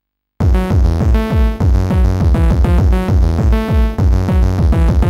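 Electronic music from an Amiga intro: after a brief silence, a new tune starts with a steady drum-machine beat and synthesizer lines.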